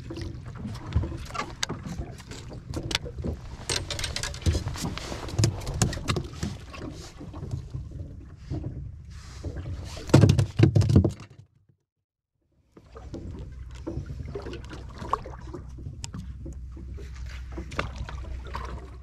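Clatter and knocks of a freshly caught yellowback sea bream and tackle being handled on the deck of a small wooden boat, over a steady low rumble. The knocks are loudest about ten seconds in, then stop for about a second of silence, and the rumble goes on with fewer, lighter knocks.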